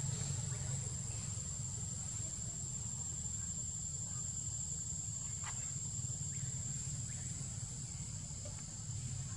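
Steady, high-pitched trill of insects, unbroken, over a low steady rumble.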